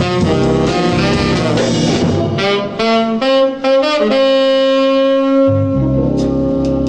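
R&B instrumental record with saxophone and band. Partway through, the bass and drums drop out for a couple of seconds under a long held note, then the full band comes back in with cymbal hits near the end.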